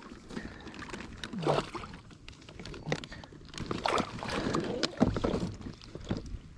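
Scattered clicks and knocks of fishing gear being handled in a small boat on the water, with a couple of brief voice sounds about a second and a half in and again around four to five seconds in.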